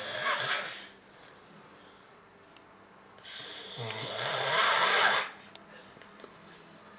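A person snoring. One snore trails off about a second in, and a full snore of about two seconds comes midway; each starts with a low rattle and turns into a noisy rush of breath.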